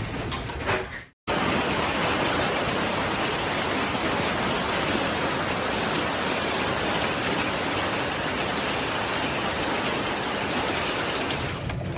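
Heavy storm downpour: a dense, steady hiss of hail and rain pelting down, starting suddenly about a second in and continuing unbroken.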